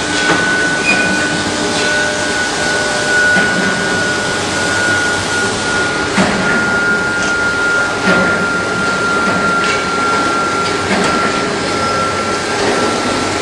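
Induction melting furnace running: a steady high whine that sinks slowly in pitch, over a loud noisy hum, with a few knocks.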